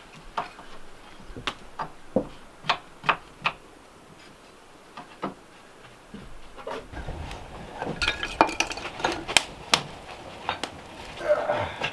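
Dishes and cookware clinking as they are handled: sharp, irregular clinks, coming thicker and faster in the last few seconds.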